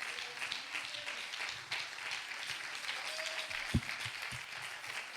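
Congregation applauding, a steady patter of many hands, with a single low thump about three and a half seconds in.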